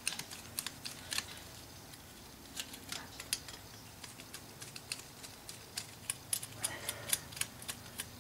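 Irregular small metallic clicks and taps of a screwdriver and loose hardware while the furnace blower motor's mounting is being loosened, coming in bunches with short pauses between.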